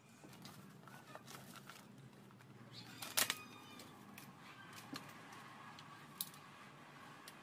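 Light clicks and rustles of a clear plastic headlight lens being handled and worked with a small cutter blade and tissue paper, with a sharp click about three seconds in and another near six seconds.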